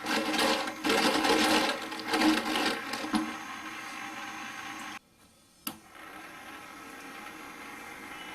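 Small battery-powered DC motor spinning a little plastic propeller, running with a steady buzzing hum. It is loud and rough for the first three seconds, then settles. A sharp click comes after a brief break about five and a half seconds in.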